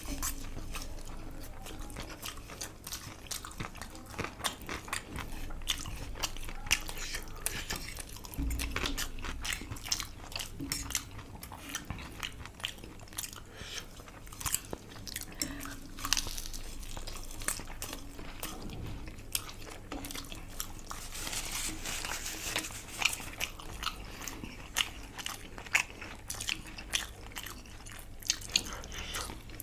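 Close-miked eating: chewing and biting, with crunches and many small wet mouth clicks.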